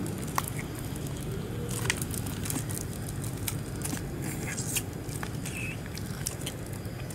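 Baby monkey sucking at a small milk carton held to its mouth: scattered small clicks and smacks with a crinkle of the packaging, over a steady low hum.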